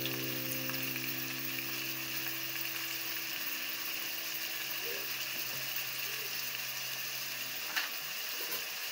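Chopped tomatoes and vegetables sizzling as they fry in a metal pot, with a steady hiss; near the end a lid is set on the pot with a single knock.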